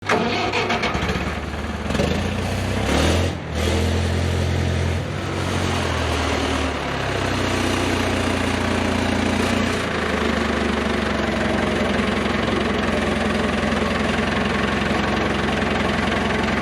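Tractor engine running steadily, its note changing about three to five seconds in before settling again.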